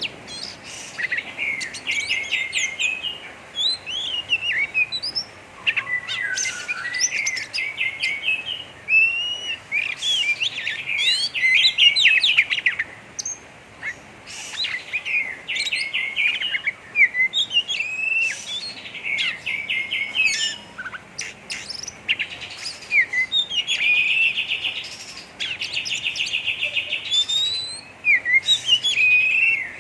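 Oriental magpie-robin (kacer) singing a rough, fast chattering 'ngeriwik' song: runs of rapid trills and whistled notes with short breaks between phrases. Kacer keepers play this kind of song to provoke a bird into fanning its tail.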